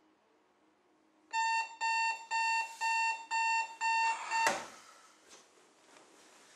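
Bedside digital alarm clock beeping, about six beeps at a steady pitch, roughly two a second, then a sharp slap as a hand hits the clock to silence it, and the beeping stops.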